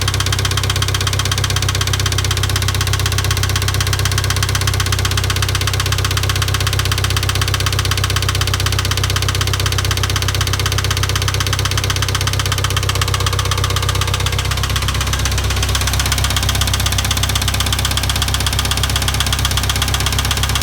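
International Harvester 2544 tractor engine running steadily with a rhythmic knock whose source has not yet been found.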